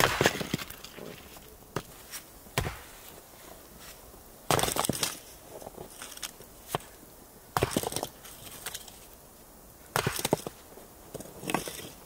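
Axe splitting firewood logs on a chopping block: a sharp split right at the start, then more strikes and knocks of wood every couple of seconds.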